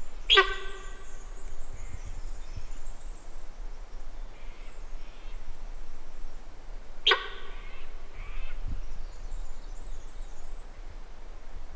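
Sambar deer giving two loud honking alarm calls, one at the start and another about seven seconds later; each is a short, sharp horn-like blast that trails off. Faint birdsong sounds in the background.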